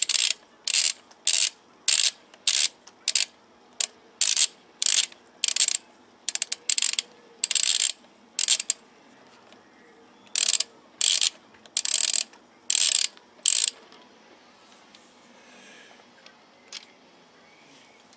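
Ratchet head of a torque wrench clicking in short runs, one run per back-swing about every half second, as a loosened wheel bolt is wound out of the hub. The runs pause about nine seconds in, resume for six more strokes, and stop about fourteen seconds in.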